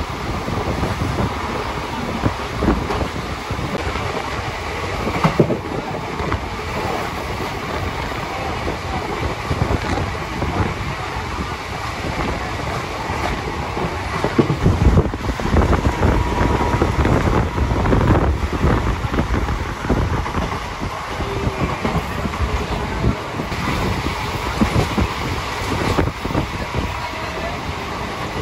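Express passenger train running on the track: a steady rumble with wheels clattering over the rail joints and some wind noise on the microphone.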